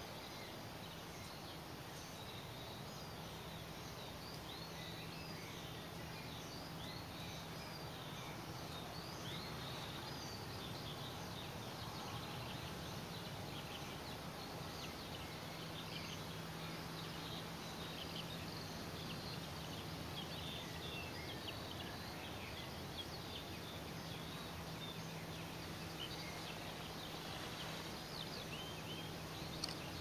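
Distant birdsong: a steady stream of short, high chirps and trills, over a low hum that comes and goes.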